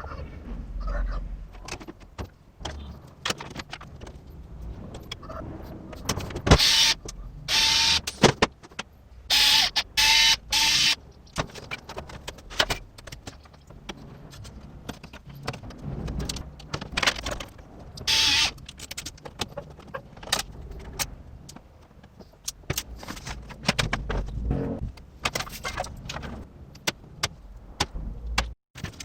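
Clicks and rattles of small hard parts being handled, broken by several loud bursts of a whirring small motor, each about a second long.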